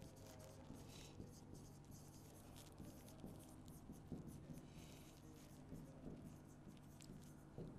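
Faint scratching and tapping of a pen writing on a board in many short strokes, over a low steady hum.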